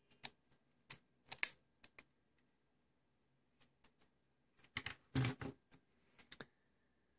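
Clicks and light knocks of a cassette tape-drive mechanism being handled, its plastic and metal parts clattering. A louder cluster of knocks comes about five seconds in as it is set down on the table, followed by a few small clicks.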